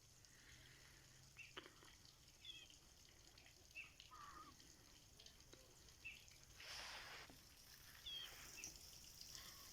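Faint, scattered bird chirps, short and irregular, with a brief hiss about seven seconds in.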